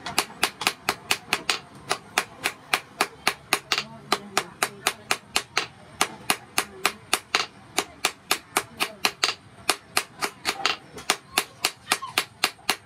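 Hand hammer striking red-hot steel rebar on a small steel anvil in rapid, even blows, about four a second, each a sharp metallic clink.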